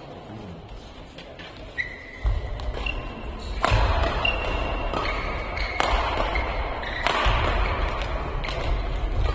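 Badminton rally: sharp racket hits on the shuttlecock, about three of them one to two seconds apart in the second half, with short high squeaks of shoes on the court floor. A low rumble comes in about two seconds in.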